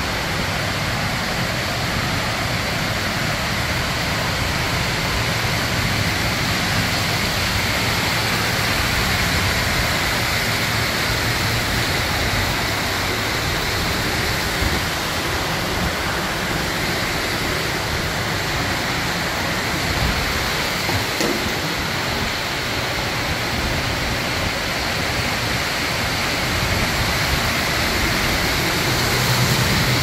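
Steady loud rush of a waterfall and the shallow stream running through a concrete road tunnel, the water noise filling the enclosed space.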